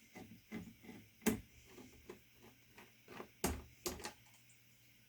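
Irregular small clicks and knocks of a screwdriver and plastic parts as the motherboard's stock AM4 retention bracket is unscrewed and lifted off. The sharpest knocks come about a second in and again around three and a half to four seconds.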